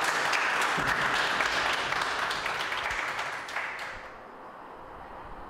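Small roomful of people applauding, a dense patter of claps that dies away about four seconds in, leaving a quiet steady hiss.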